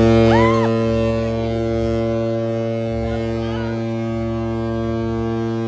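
A deep stadium horn blast, like a ship's foghorn, held at one steady pitch over the public-address system after a successful score. A short rising-and-falling whoop cuts across it near the start.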